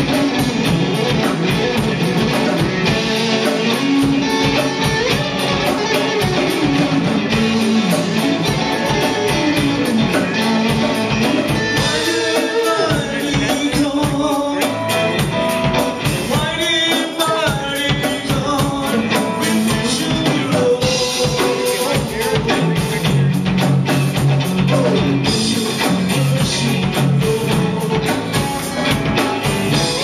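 Electric guitar played in a rock style over a steady drum beat, with a man singing along.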